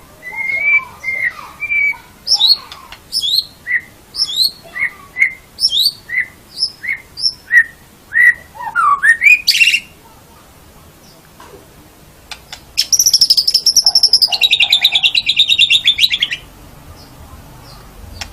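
White-rumped shama (murai batu) singing: a run of loud, clear whistled notes, many sliding down in pitch, for about ten seconds. After a short pause comes a fast rattling trill that steps down in pitch and stops abruptly.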